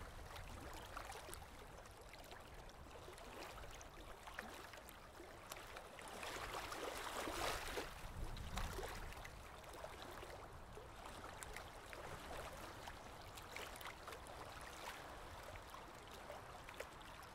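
Faint trickling, lapping water with many small splashes and drips, a little louder around seven to eight seconds in.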